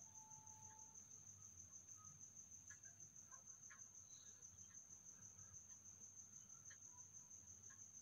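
Near silence: room tone with a faint, steady, high-pitched pulsing trill.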